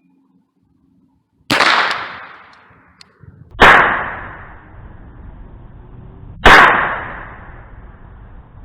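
Three single shots from an AR-15 pistol firing .22 rounds through a conversion kit, a couple of seconds apart, each a sharp crack followed by a fading echo.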